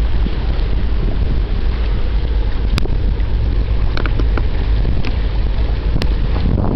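Wind buffeting the microphone: a loud, steady rumbling noise, with a few light clicks about three, four, five and six seconds in.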